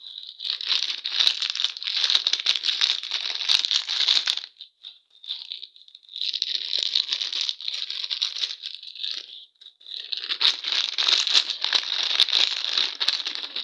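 Candy wrappers being torn open and crinkled by hand, in three long bouts of dense crackling with short pauses between them.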